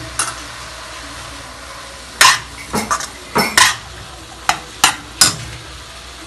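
A spatula scraping and knocking against a stainless steel kadai as chopped onions, tomatoes and spice powders are stirred in the dry pan with no oil. A quick run of sharp scrapes and knocks comes between about two and five seconds in, over a steady hiss.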